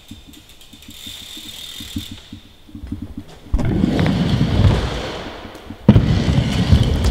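Stunt scooter wheels rolling over plywood skatepark ramps: a loud, low rumble that starts suddenly about three and a half seconds in, with a sharp knock about six seconds in and the rolling going on after it.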